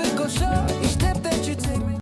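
Background pop music with a steady drum beat and a melodic line.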